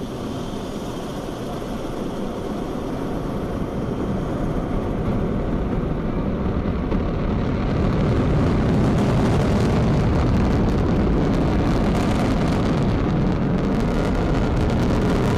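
Long March 2C rocket lifting off: the continuous roar of its first-stage engines, a dense rumble that builds over the first several seconds and then holds steady.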